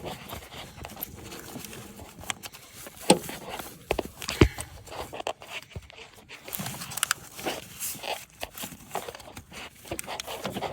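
Irregular light clicks, knocks and scrapes of a camshaft position sensor being rocked side to side and worked out of its bore in the cylinder head by hand, with a couple of sharper knocks about three and four and a half seconds in.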